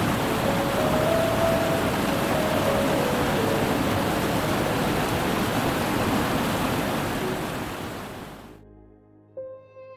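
Mountain stream rushing over rocks, a steady loud rush of water with faint music under it; the water fades out about eight seconds in and soft music carries on alone near the end.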